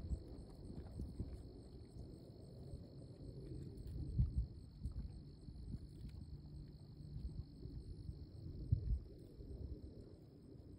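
Crickets chirping steadily in the background over a low outdoor rumble, with a couple of muffled thuds, one about four seconds in and one near the end.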